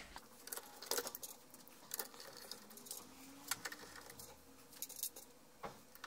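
Faint, scattered small clicks and light metallic clinks of screws and a screwdriver being handled while screws go back into the printer's metal frame.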